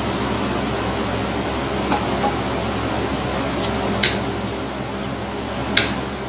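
Metal nail nippers snipping a very thick toenail: a sharp snip about four seconds in and another near the end, with fainter clicks earlier, over a steady mechanical whir.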